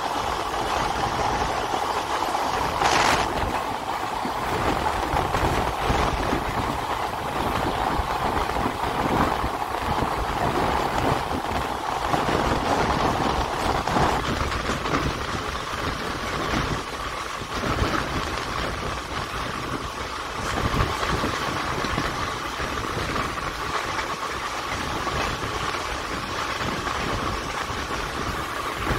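Passenger train running along the line, heard from on board: a steady rumble of wheels on rails with scattered clicks over the rail joints and a steady high whine throughout.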